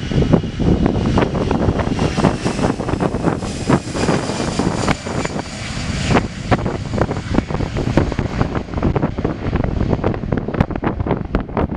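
Airbus A320 jet airliner's engines at takeoff thrust during the takeoff roll and lift-off: a steady loud rumble with a high whine that slowly drops in pitch as the aircraft passes. Gusts of wind buffet the microphone throughout.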